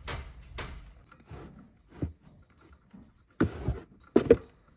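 A series of knocks and scrapes, with two louder thuds near the end.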